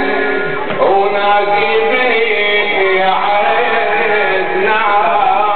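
A male reciter chanting an Arabic Muharram lament (latmiyya) through a microphone, holding long wavering notes, with a sharp hit about a second in.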